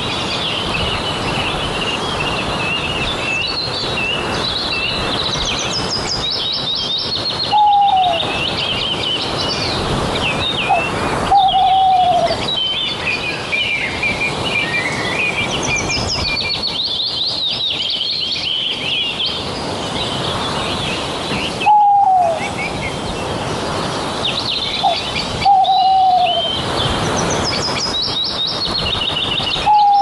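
A chorus of small birds chirping and twittering, with a louder short call falling in pitch heard several times.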